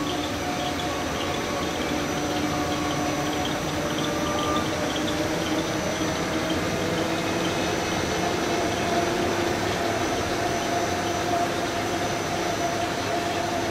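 Paper slitting and rewinding machine running steadily: a motor hum and whine over an even rushing noise. The whine rises slightly in pitch over the first several seconds, then holds.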